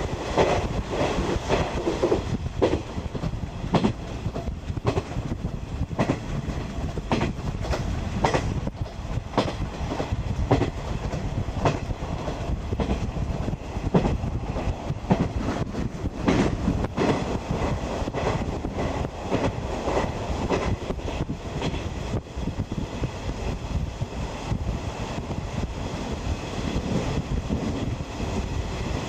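A 50-series passenger coach running along the line, heard from inside: a steady rumble with the wheels clicking irregularly over rail joints.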